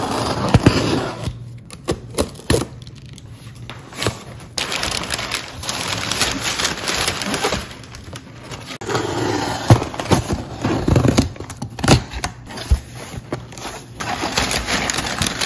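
Two cardboard shipping boxes being opened and unpacked by hand: irregular rustling, crinkling and scraping with frequent clicks and knocks as items are taken out and set down.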